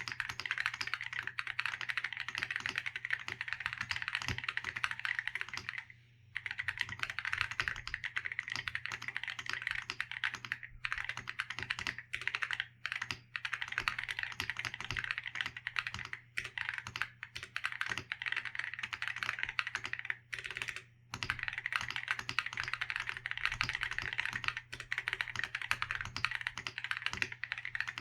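Fast continuous typing on a Keychron Q6 mechanical keyboard with lubed and filmed WS Morandi switches, a polycarbonate plate and Cerakey ceramic keycaps, dampened with a silicone dampener and tape mod. A rapid stream of keystroke clacks, broken by brief pauses a few times.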